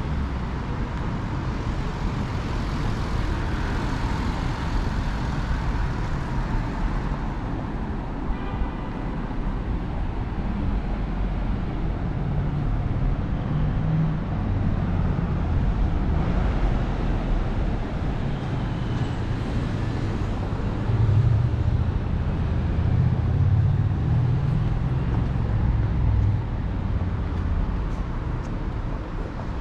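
Road traffic on a city street: passing cars and other vehicles make a steady rumble and tyre noise that swells a little louder for a few seconds past the middle.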